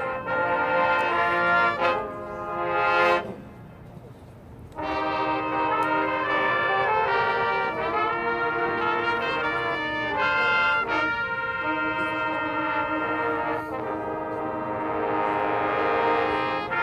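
High school marching band brass playing loud sustained chords. The chords swell and cut off about three seconds in, and after a short lull the full brass comes back in, holding chords that swell again near the end.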